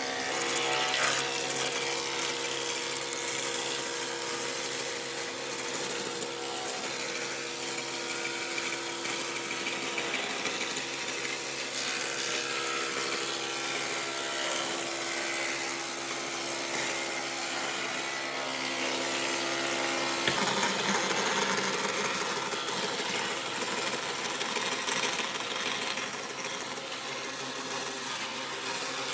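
A power tool working wood: a steady motor hum under a dense, hissing cutting sound. About eighteen seconds in, the sound briefly drops and changes, then picks up again.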